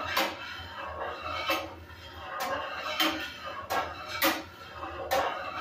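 Long-handled metal ladle knocking against the sides of a large metal stockpot as a pot of curry sauce is stirred: about seven separate clinks, irregularly spaced.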